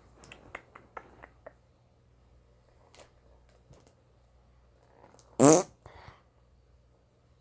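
A short, loud fart sound rising in pitch about five and a half seconds in, after a few faint clicks and taps near the start.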